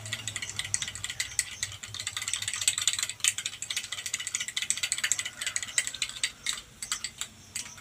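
A spoon beating sour yogurt (curd) in a small cup: a fast, rattling run of clicking strokes, many a second, that thins out near the end.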